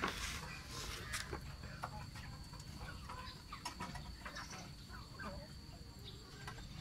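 Faint, scattered clucks and short calls from poultry, with a steady high-pitched whine underneath.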